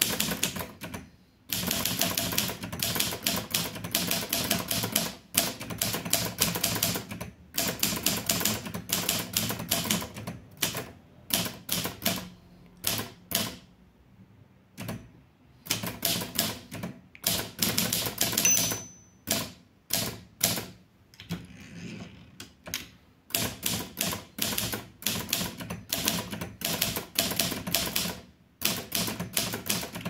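Litton Royal 203 manual portable typewriter being typed on: runs of rapid key strikes lasting a second or a few seconds, broken by short pauses.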